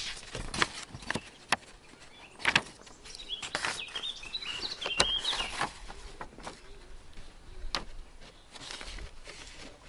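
Pages of a service book being turned and handled close to a microphone: a string of paper rustles and small knocks, the loudest about two and a half and five seconds in. A bird chirps in a quick run from about three and a half to five and a half seconds in.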